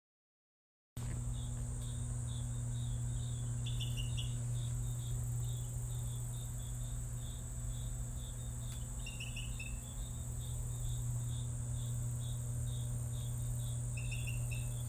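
Night-time crickets chirping in a steady, even rhythm over a low steady hum, with a few brief higher chirps now and then. It starts after about a second of silence.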